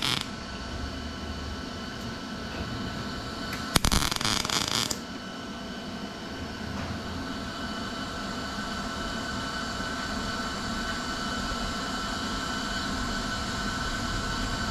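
MIG welder arc crackling in two short tack welds, one cutting off just after the start and a second, louder one of about a second around four seconds in. These are tacks filling a gap in a steel body seam. A steady mechanical hum with a faint whine runs underneath.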